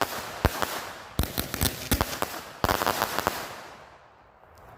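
Pulse Pounder firework going off as a quick string of sharp bangs over a hissing crackle, several a second, thinning out and dying away after about three and a half seconds.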